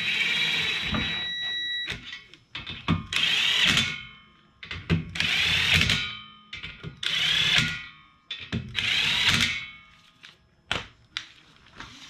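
Impact gun spinning lug nuts onto a wheel stud, run five times in bursts of a second or two, with small clicks of the socket and nuts between runs.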